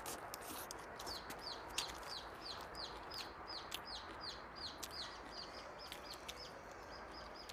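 Chicks peeping in a steady series of short, high, falling notes, about two or three a second, with scattered soft clicks of chewing close by.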